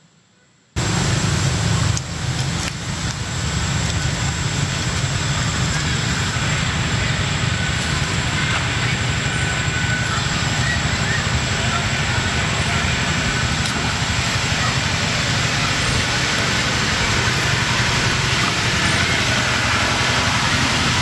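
Wind buffeting the camera microphone: a loud, steady rush, heaviest in the low end, that starts abruptly about a second in.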